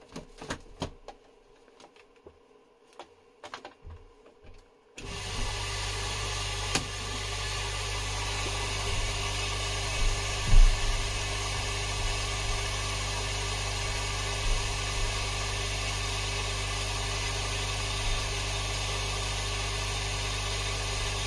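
A few faint clicks, then about five seconds in a Charles Austen ET80 linear air pump switches on and runs with a steady low hum, with one brief knock about ten seconds in.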